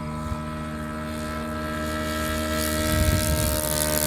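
O.S. FS-120 four-stroke glow engine of a radio-controlled Beechcraft Bonanza model running at steady full throttle on its takeoff roll across grass, its propeller sound growing louder as it nears, with a rising hiss in the second half.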